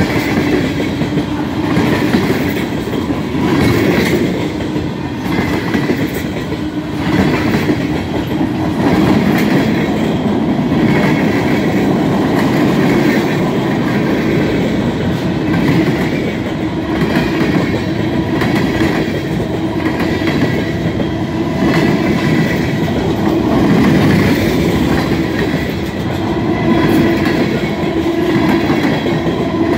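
Norfolk Southern freight train's cars rolling past at close range: a steady rumble of steel wheels on the rails, with repeated clickety-clack as the wheels cross rail joints.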